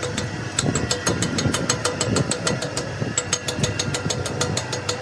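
An engine or motor running steadily, with a rapid, even ticking of about nine beats a second over a steady hum.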